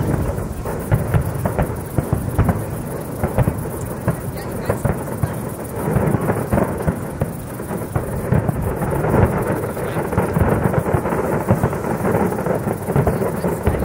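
Fireworks display: a dense, unbroken run of bangs and booms from bursting aerial shells, growing heavier about six seconds in.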